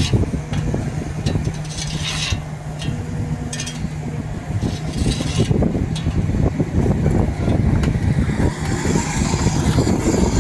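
Excavator's diesel engine running with a steady low hum and heavy rumble, as the machine is driven down off a trailer.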